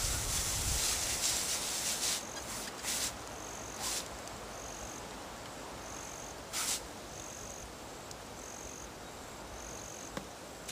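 An insect chirping in the background, a short high-pitched chirp about once a second. A rustling noise fills the first two seconds, and a few short bursts of noise come later.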